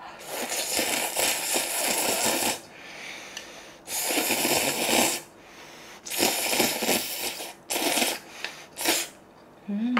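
Someone slurping noodles in about five noisy sucking draws, the first the longest, ending with two short ones.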